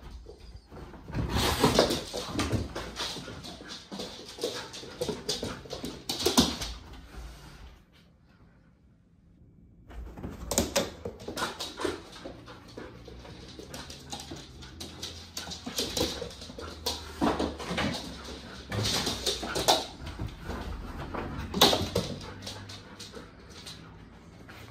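Alaskan Malamute puppy whining and vocalizing in repeated irregular outbursts. It breaks off for about two seconds roughly a third of the way in.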